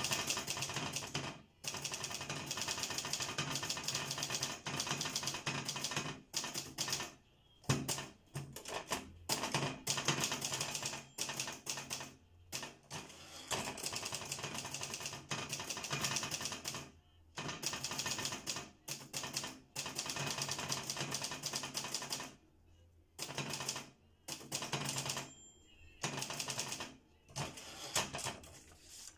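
Fast typing on a laptop keyboard: runs of rapid keystrokes a few seconds long, broken by short pauses.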